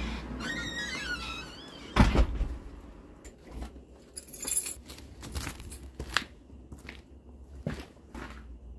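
A squeaky creak, then a heavy thud about two seconds in, followed by scattered light clicks and knocks: household handling sounds, like a door or cupboard being worked.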